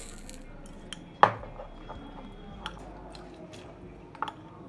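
A metal spoon stirring thick beetroot raita in a glass bowl, with soft squishing and a sharp clink against the glass about a second in, then a couple of lighter clinks near the end.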